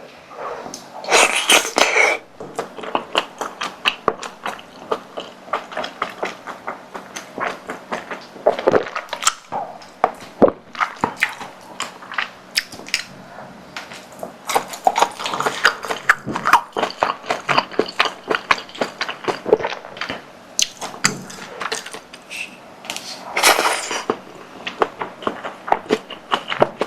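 Eating sounds: chewing spicy tteokbokki with rapid, wet mouth clicks throughout, and two longer, louder noisy bursts, one about a second in and one near the end.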